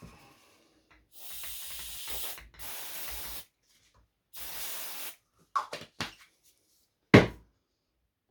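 Aerosol spray can hissing in three bursts on a gummed-up engine part, followed by a couple of light clicks and one loud knock near the end.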